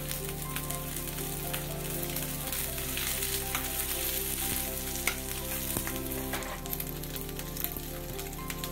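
Chunks of onion and green capsicum sizzling steadily in hot oil in a kadhai. A metal slotted spoon stirs them, with a few sharp clinks against the pan about halfway through.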